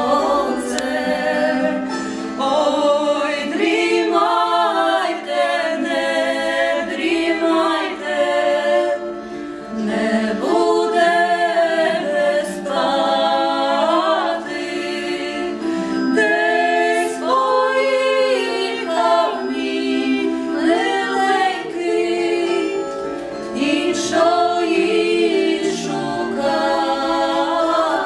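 Three women singing a cappella in harmony, several voices holding and moving through long sung phrases together.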